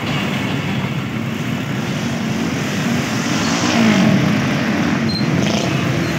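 Motorcycle engines running and revving as road traffic moves off across the railway tracks just after a train has passed, with one engine revving up about four seconds in.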